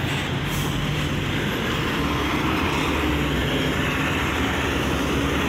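Heavy loaded goods truck with a tarpaulin-covered load driving slowly past close by, its diesel engine giving a steady rumble.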